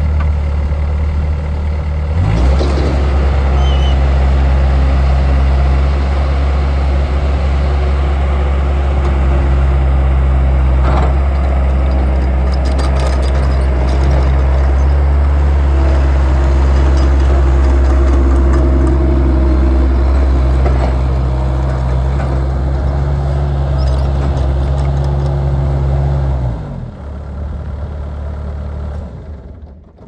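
Bobcat S175 skid-steer loader's Kubota four-cylinder diesel engine running. About two seconds in it revs up and holds a steady higher speed as the machine moves on its steel over-the-tire tracks, with a sharp clank about eleven seconds in, then the engine sound falls away near the end.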